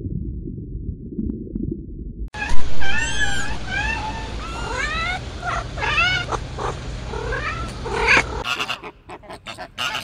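A low, muffled underwater rumble, cut off a little after two seconds by a kitten mewing over and over, each mew rising and falling in pitch. Near the end it switches to a flamingo flock's short, rapid calls.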